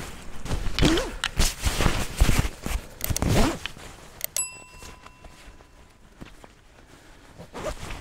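Rustling and knocking of camera gear and clothing being handled as the kit is packed away, loudest in the first three seconds or so. About four and a half seconds in, a single bright bell ding, the subscribe-button sound effect, rings out and fades within about a second.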